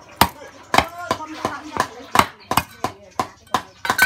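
Meat cleaver chopping raw chicken on a thick round wooden chopping block: a run of about a dozen sharp chops, two to three a second.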